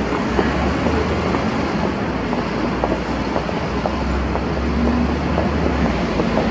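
Busy city street traffic: city buses and cars running past, with a steady low engine rumble.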